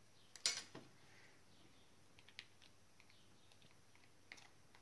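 A few light clicks and taps from a small plastic borax container and its cap being handled, the sharpest click about half a second in and fainter ticks later on.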